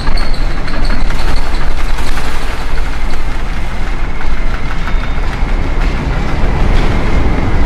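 Loud, steady roar of a storm at sea: wind and heavy waves around a ship, with a faint thin high tone running through it.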